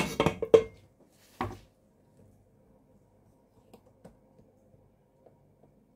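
A metal carving fork clattering against a ceramic serving dish during the first second, followed by one knock and a few faint taps.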